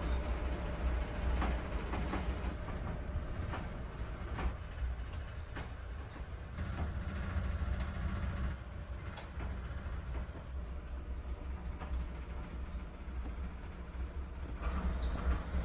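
Steady low rumble of the ferry's engines and machinery heard inside a passenger cabin, with faint scattered ticks and creaks.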